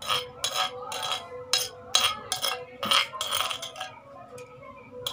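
Metal spoon scraping and clinking against the inside of a large earthenware bowl in quick repeated strokes as chutney is scooped out, thinning out near the end.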